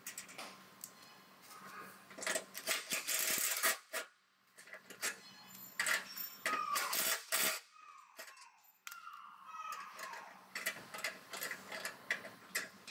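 Metal clicks and clinks of hand tools on the nuts and bolts of a Toyota Prado's front suspension, irregular and uneven, with a few short falling squeaks in the middle.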